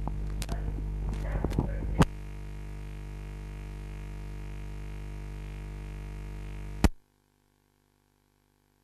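Steady electrical hum from the audio feed, with several sharp clicks in the first two seconds. The hum cuts off with a loud click about seven seconds in, leaving near silence.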